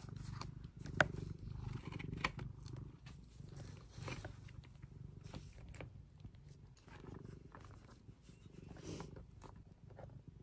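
Domestic cat purring steadily and faintly, close to the microphone, with a few sharp clicks scattered through it, the loudest about a second in.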